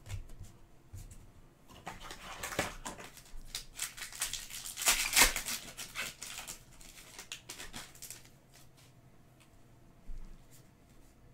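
Foil wrapper of a Panini Donruss soccer card pack being torn open and crinkled, with cards slid and flicked between fingers. The crackling is busiest through the middle, loudest about five seconds in, and dies down near the end.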